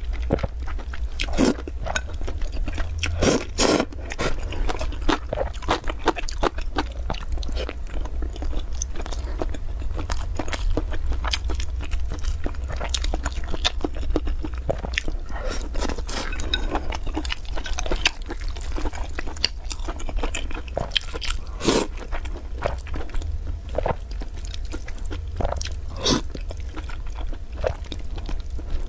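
Close-miked eating: noodles being slurped up and food being chewed, with many irregular wet clicks and smacks of the mouth. A steady low hum runs underneath.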